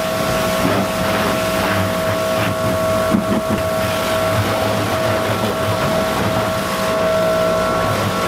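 Power washer running with a steady whine while its wand blasts a jet of water against a car's wheels and body panels.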